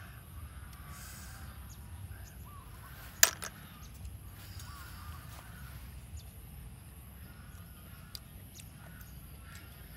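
Cooked snails being picked out of a metal wok by hand: small clicks of shells, and one sharp clink about three seconds in. Faint bird calls sound in the background.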